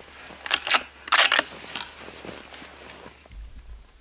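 Close rustling and rattling of gear being handled right by the microphone: a quick cluster of scuffs and clatters in the first couple of seconds, then it settles.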